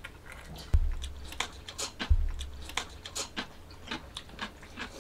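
Close-up eating sounds: jjajangmyeon noodles being slurped and chewed, with many small wet mouth clicks. Two dull knocks, about a second and two seconds in, are the loudest sounds.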